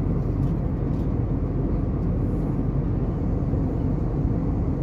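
Airbus A321neo airliner cabin noise in cruise: the steady low rush of the engines and airflow heard from a window seat beside the engine.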